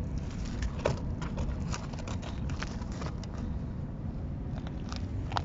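Loose stones and gravel clicking and scraping as rocks are shifted and stepped on, in scattered sharp ticks with a louder click about a second in and another near the end, over a steady low rumble.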